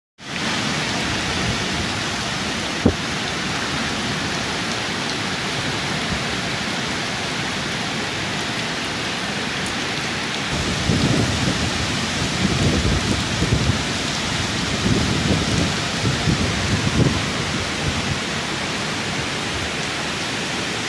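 Heavy cyclone rain pouring down in a steady, dense hiss, driven by strong wind. From about ten seconds in, gusts hit the microphone in uneven low rumbles for several seconds. There is a single sharp click about three seconds in.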